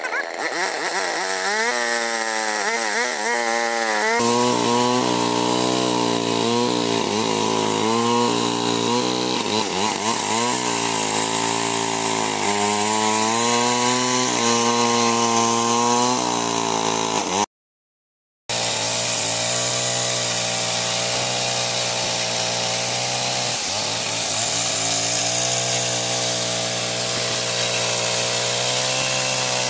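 Old two-stroke chainsaw cutting albasia wood, its engine pitch dipping and recovering as the chain bites, then running steadier. The sound cuts out completely for about a second near the middle.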